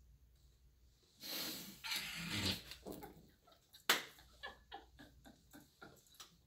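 A person bursts out laughing and splutters about a second in, as a mouthful of water is spat out. Then comes breathless laughter in rapid short pulses, with a sharp click near the middle.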